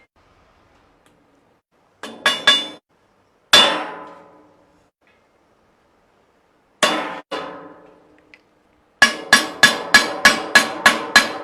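Hammer blows on a sheet-metal cat litter box, each with a short metallic ring: three quick taps, a few single strikes, then a steady run of about three strikes a second near the end.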